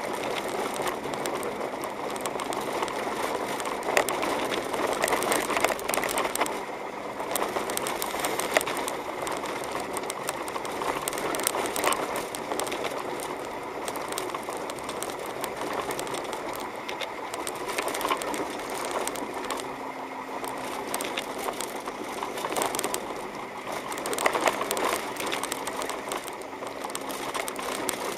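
Car driving on a snow-covered road, heard from inside the cabin: steady engine and road noise with a dense, constant crackle and rattle.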